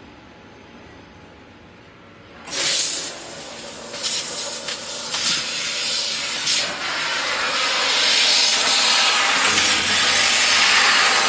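Fiber laser cutting machine's cutting head jetting assist gas with a loud hiss as it cuts sheet metal. The hiss starts suddenly about two and a half seconds in, surges several times, then holds steady and louder; before it there is only a low machine hum.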